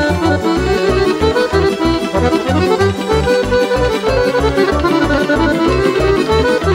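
Instrumental break in a Vlach folk song: an accordion-led dance tune, a fast melody over a steady pulsing bass beat.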